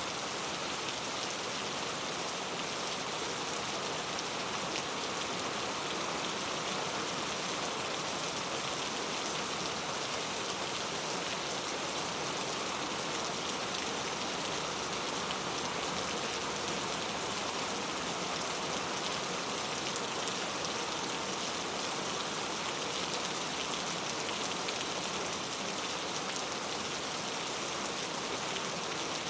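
Steady rain falling, a dense, even hiss of many drops with no thunder.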